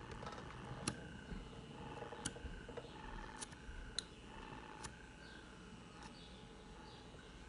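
Small handheld comedone vacuum suction device running faintly, its thin whine coming and going, with several sharp little clicks as the suction tip is worked over the skin of the nose.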